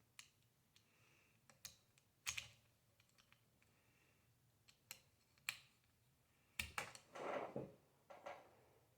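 Scattered small plastic clicks and taps, seven or so spread over several seconds, as pieces of a plastic model airplane kit are handled and pressed together, with a short rustle about seven seconds in.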